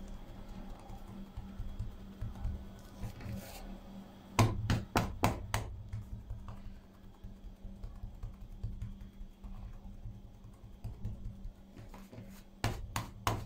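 Hands working a soft bread dough on a countertop, pressing and shaping it: quiet handling and rubbing, with a quick run of about six sharp taps a little after four seconds in and a few more near the end.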